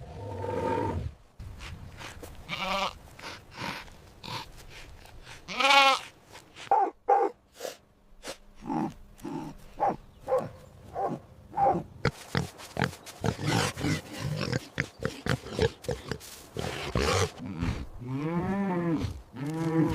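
Pigs grunting in quick short bursts, with a few longer high squeals among them.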